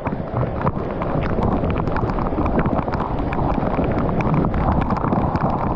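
Wind buffeting the microphone: a steady, low rumbling noise.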